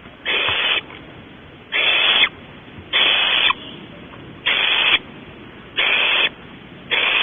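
Barn owl owlets giving their hissing begging call, the nestling 'snore': a hiss about half a second long, repeated about every second and a half, six times.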